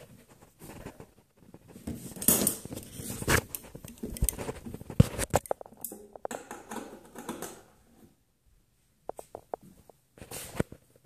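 Irregular rustling, scraping and clicks of hand-held handling noise, loudest in the middle and dying away, followed by a few sharp clicks and a short rustle near the end.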